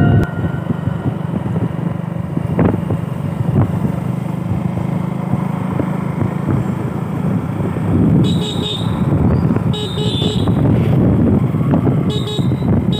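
Motorcycle engine running steadily at cruising speed with wind and road noise, heard from the rider's seat. Three brief high-pitched bursts come in the second half.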